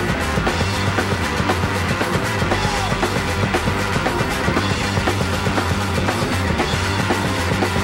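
Hard rock power trio playing an instrumental passage with no vocals: electric guitar, bass guitar and a drum kit beating out a steady, driving rhythm.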